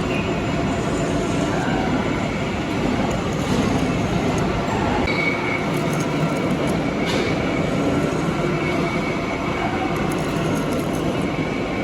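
Metal lathe running steadily, a continuous machine drone.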